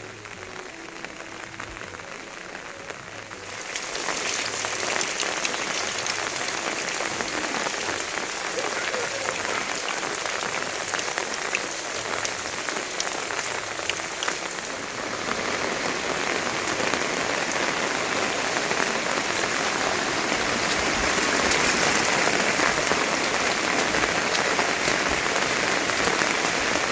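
Steady patter and hiss of rain, growing clearly louder about three and a half seconds in.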